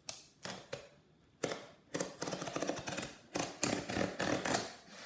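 Utility knife slicing through packing tape on a cardboard box: a few sharp clicks, then a longer run of scratchy cutting strokes along the seam.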